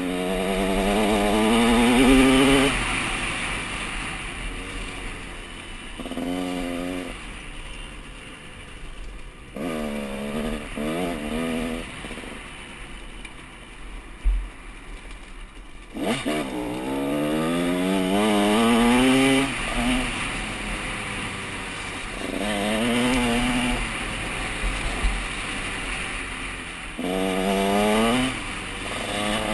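KTM 150 SX two-stroke single-cylinder dirt bike engine being ridden hard, revving up in repeated bursts whose pitch climbs each time, dropping back between as the throttle is rolled off. A single sharp knock about halfway through.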